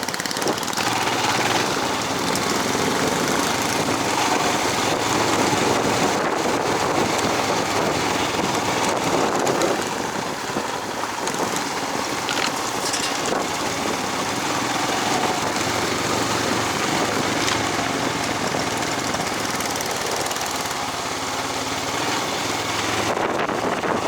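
A vehicle engine running steadily while riding along a rough forest road, mixed with wind noise on the microphone.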